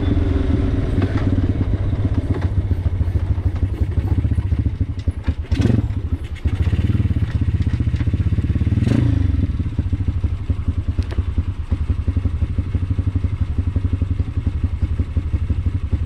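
Yamasaki 140 YX dirt bike's single-cylinder four-stroke engine running through a homemade dual-outlet exhaust, with a carburettor setting the owner calls poor. Its pulsing note dips about five seconds in, with brief clunks around five and nine seconds, then settles into an even, steady putter.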